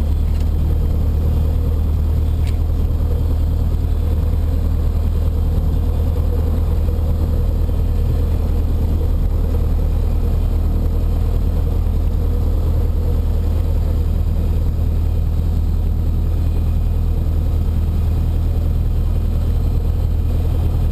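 Cessna 152's four-cylinder Lycoming O-235 engine and propeller idling steadily, heard from inside the cockpit.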